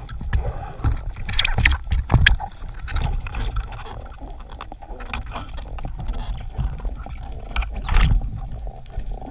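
Water noise picked up during a spearfishing dive: a steady low rumble of moving water with many small clicks and crackles, and a few louder crackling bursts about one and a half, two and eight seconds in.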